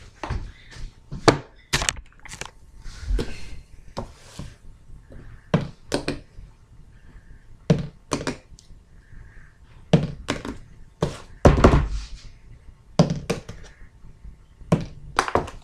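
Irregular knocks and thumps as books and plastic water bottles are handled and set down on a tabletop, about twenty in all, the loudest cluster about three-quarters of the way through.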